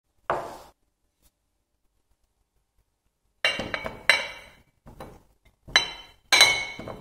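A glass bowl set down on a wooden cutting board, then whole baby potatoes tipped from a glass dish into the glass bowl, knocking and clinking against the glass with a short ringing. One knock comes near the start, then a quick run of clinks over the last few seconds.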